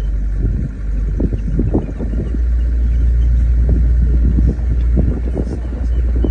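Steady low rumble of a river tour boat's engine heard from on board, growing a little stronger about two seconds in, with irregular short knocks or splashes over it.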